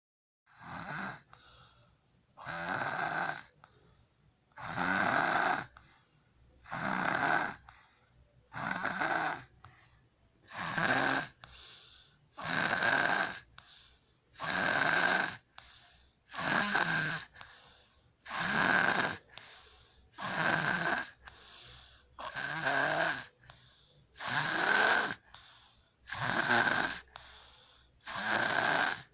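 Young child snoring in sleep while breathing through an open mouth, a strong snore about every two seconds with a fainter breath sound between. This is the obstructed breathing of enlarged tonsils and adenoids, before their removal.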